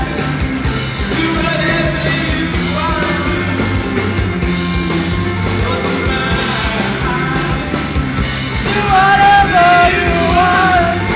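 Rock song playing loudly and steadily. Near the end a held melody line bends in pitch above the band.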